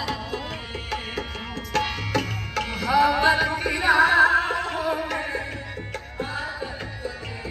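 Background song: a voice sings over tabla drumming, with the singing strongest about three to five seconds in.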